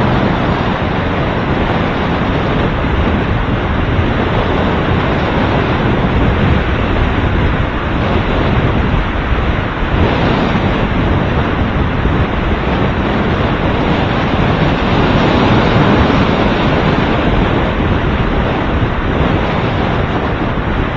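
Steady wind noise buffeting the microphone of a camera riding along on a moving bicycle, with road rumble underneath.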